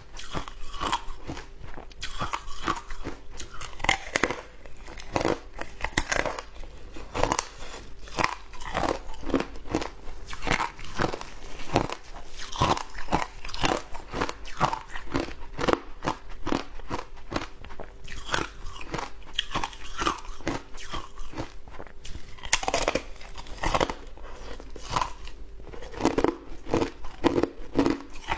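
Close-miked chewing of crunchy shaved ice: a dense, irregular run of crisp crunches, several a second, without a break.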